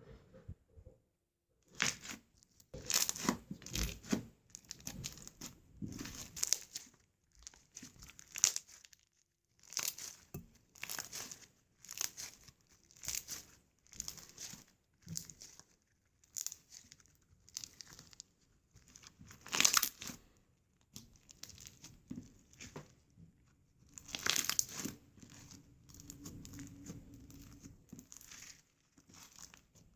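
Slime being squeezed, pressed and stretched by hand, giving a string of short crackles and squelches at an uneven pace, a few of them much louder than the rest.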